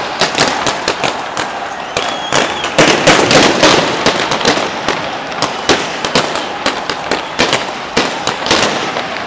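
Gunshots fired into the air, sharp cracks several times a second in irregular bursts, over continuous crowd noise. The shots are warning fire meant to scare the crowd.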